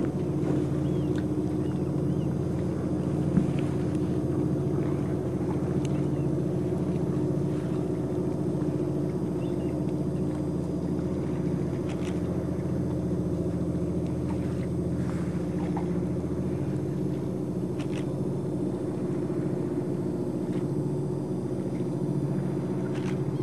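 A steady low mechanical hum of several held tones, unchanging throughout, with a few faint ticks now and then.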